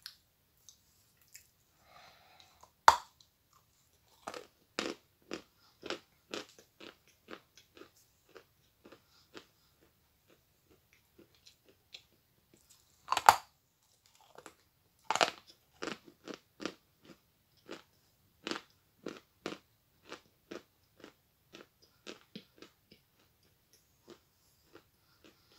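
Teeth biting pieces off a large chunk of dry Stary Oskol chalk and chewing it in crisp crunches, about two a second. There are sharp, loud bites a few seconds in, again about halfway through and shortly after.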